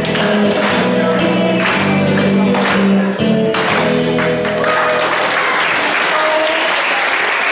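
Music with pitched notes ends about halfway through, and audience applause carries on after it.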